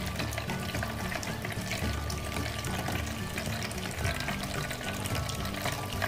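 Water splashing steadily down a small tabletop waterfall fountain into its basin, with background music playing along.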